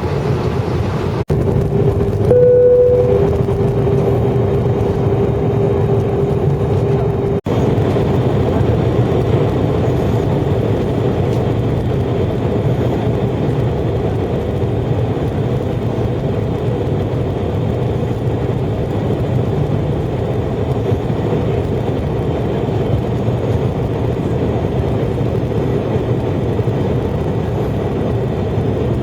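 Steady cabin noise of a jet airliner in flight, the low rumble of engines and airflow heard inside the cabin. Near the start a steady hum-like tone sounds for about six seconds, with a brief higher tone over it, and the sound cuts out for an instant twice.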